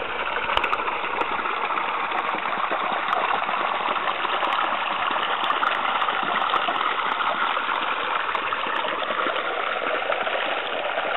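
Shallow stream running over a bed of stones: a steady rush of water.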